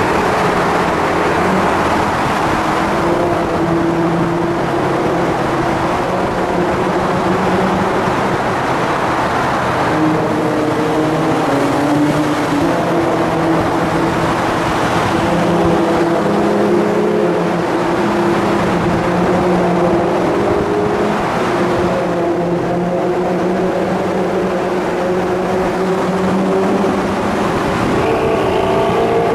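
Sports car engines and exhausts running loud in a road tunnel, the echoing engine note shifting up and down in pitch with the throttle.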